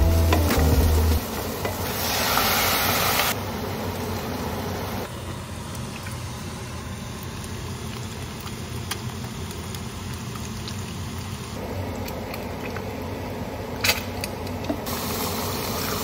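Egg and pork jowl frying in pans on a stovetop: a steady sizzling hiss that swells and drops as the shots change. Near the end a utensil knocks once against the pan.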